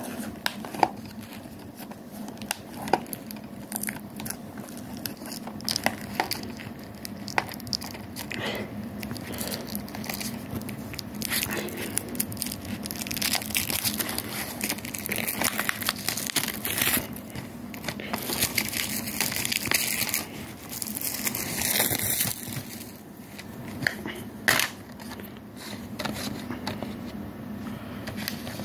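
Clear plastic shrink-wrap being torn and crinkled off a DVD case, a crackling rustle with many small clicks as the case is handled. The crackling is busiest in the middle.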